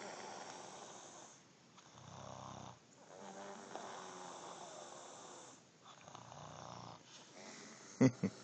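A woman snoring in her sleep: long rough breaths alternating with low buzzing snores, about every four seconds. Near the end come a couple of short sharp noises.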